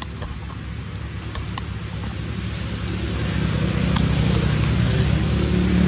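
A motor vehicle's engine running and growing steadily louder as it approaches, its low hum swelling over the last few seconds. A few light clicks sound in the first couple of seconds.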